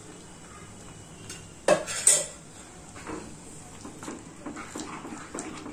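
A utensil knocks sharply twice against a kadai about two seconds in. Then a plastic slotted spatula stirs thick, syrupy semiya kesari around the pan in repeated soft strokes, working in freshly added ghee.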